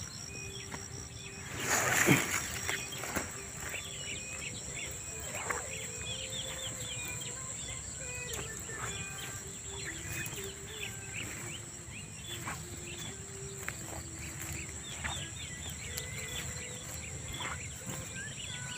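Field ambience: small birds chirping in short repeated calls, over a steady high insect drone. About two seconds in comes a brief louder rustle.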